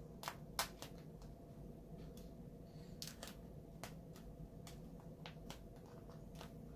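Faint, irregular clicks and crackles of vinyl wrap film being pressed and worked by hand onto a plastic trim piece, over a faint steady hum.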